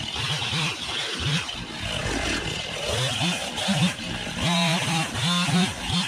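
Gas chainsaw idling with an uneven, wavering engine note, briefly revved a little past the middle.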